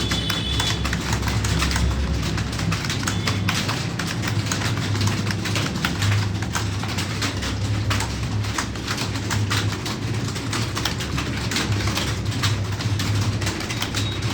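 Rapid computer keyboard typing: dense, irregular key clicks over a steady low hum.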